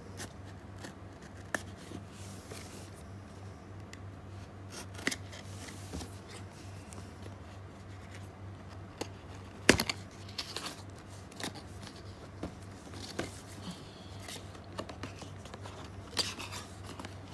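A cardboard product box being opened by hand: scattered scraping, rubbing and tearing of cardboard and packaging, broken by short clicks and taps, the sharpest nearly ten seconds in.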